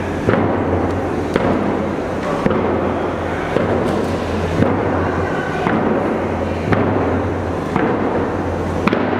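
Northwest Coast First Nations hand drums struck together in a steady beat of about one hit a second, each hit ringing on in a large hall.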